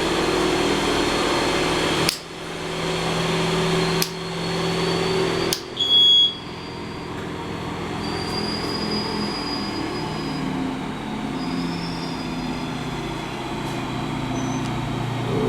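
Rotax 912S four-cylinder boxer aircraft engine running on a test bench on its first run after an overhaul. The running is broken by sharp clicks with brief dips at about two, four and five and a half seconds in, and a short high beep about six seconds in. After that the engine runs on more quietly and steadily.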